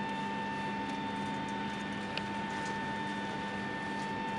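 Steady hum of an airliner cabin: the even rush of the ventilation with a constant high-pitched tone over it, and one faint click about two seconds in.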